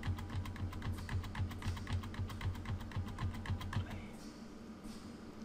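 A computer keyboard key tapped rapidly and repeatedly, several even clicks a second, stepping the video editor's cursor frame by frame; the tapping stops about four seconds in.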